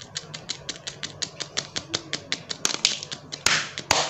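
White slime being squished and poked in the hand, making a quick, regular run of crisp clicking pops, about six a second. A few louder, longer squishes follow near the end.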